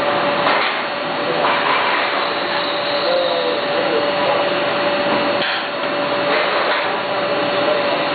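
A 450B perfect binding machine running, giving a steady whirring noise with a constant whine, and a few short knocks as the book clamp is worked.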